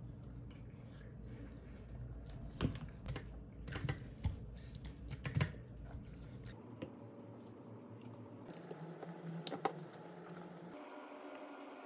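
Light clicks and taps in two short runs, the first from a few seconds in and a shorter one near the end, over a low steady room hum.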